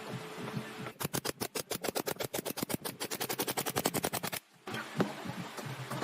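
A woodworking power tool giving a rapid, even clatter of about nine strikes a second for a few seconds, cut off abruptly, with background music and a throbbing beat before and after.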